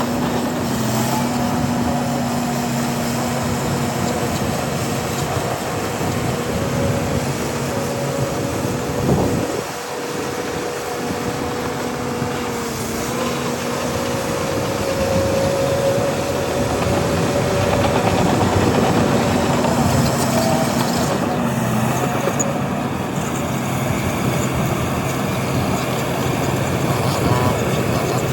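Heavy diesel earthmoving machinery running steadily. There is a brief knock and drop in the engine note about nine seconds in, and the engine pitch climbs slowly a few seconds later.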